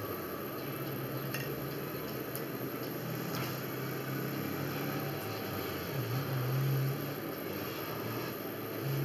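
A steady low hum with a few faint clinks of forks on ceramic plates.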